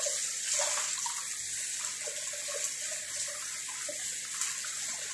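Kitchen faucet running steadily, its stream splashing over a whole raw fish being rinsed by gloved hands in the sink.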